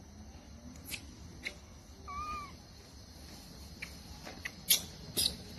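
Baby macaque giving one short squeaking call that rises and falls in pitch, about two seconds in. A few sharp clicks come through around it, the loudest near the end.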